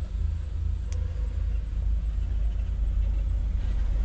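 Steady low rumble with one faint click about a second in.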